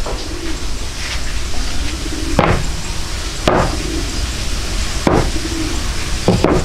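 Hammer blows on wood in carpentry work: about half a dozen sharp strikes, a second or so apart, with a quick pair near the end, over a steady low rumble.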